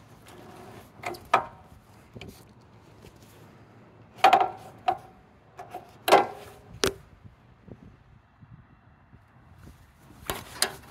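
A series of irregular hollow knocks and clatters, loudest about four and six seconds in, with another cluster near the end: a plastic basket being bumped and handled.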